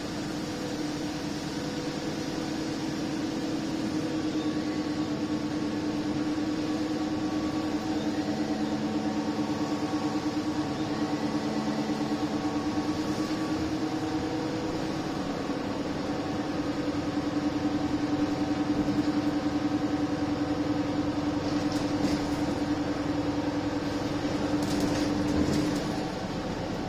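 Interior of an Alexander Dennis Enviro 300 single-deck bus on the move: engine and drivetrain running with a steady whine over road noise, easing off near the end.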